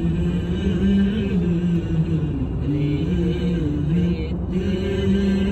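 A song with a voice singing long, slowly wavering held notes in a chant-like style, over a low steady rumble.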